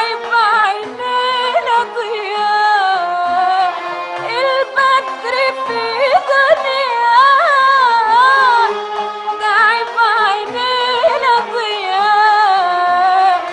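Arabic song music: an ornamented melody that wavers in pitch, over lower sustained accompanying notes.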